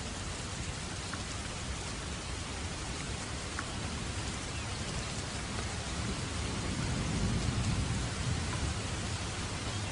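Steady rain falling, an even hiss with a few separate drop ticks. A low rumble swells and fades in the second half.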